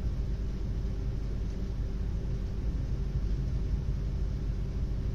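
Steady low background rumble with a faint hum, unbroken and without distinct events.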